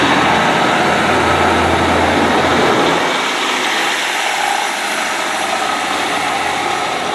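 Class 150 diesel multiple unit pulling out of the station, its diesel engine running loud under a broad rumble of the train. The low engine note drops away about three seconds in while the rumble carries on, slowly fading.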